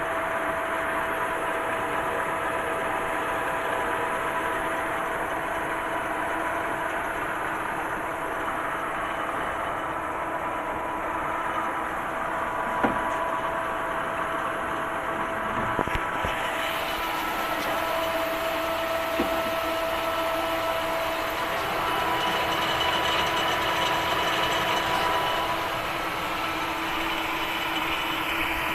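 Workshop machinery running steadily, a mechanical hum with a few steady whining tones. The tones shift about two-thirds of the way through, and a few light clicks come in the middle.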